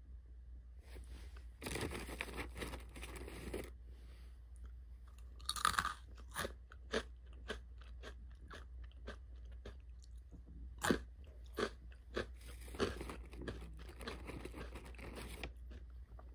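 Someone biting and chewing crunchy food close to the microphone: a string of sharp, irregular crunches, loudest about six and eleven seconds in.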